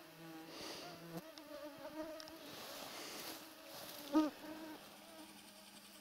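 Flying insects buzzing close to the microphone, several whining pitches at once, with soft rustling now and then. About four seconds in comes one brief, louder pitched call.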